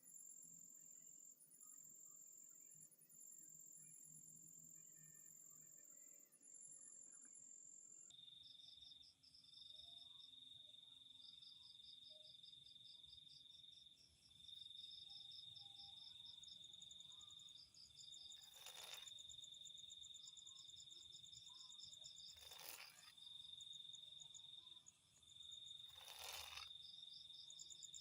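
Crickets and other night insects trilling, high-pitched: several pulsing chirrs at first, then from about eight seconds in a steadier, lower trill with faster chirping above it. Three brief bursts of noise come in the second half.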